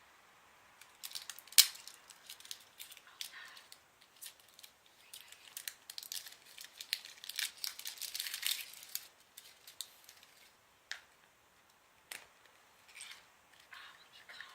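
Chocolate surprise egg being unwrapped and opened by hand: crinkling foil and plastic wrapping with scattered sharp clicks and snaps, the loudest about a second and a half in, and a longer spell of crinkling around the middle.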